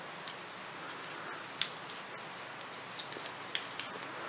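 Metal circular knitting needles clicking against each other as stitches are worked, a few sharp clicks with the loudest about a second and a half in, over a faint steady hiss.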